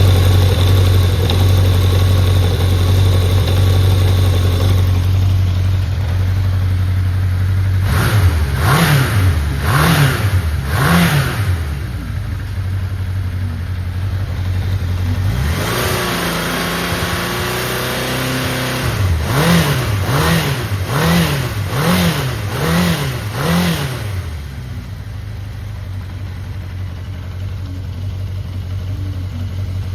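Honda CB750 RC01E air-cooled inline-four motorcycle engine idling steadily, then revved in blips: three quick revs about eight seconds in, a longer rise and fall around sixteen seconds, and six quick revs before it settles back to idle. A running engine in excellent condition with no abnormal noise.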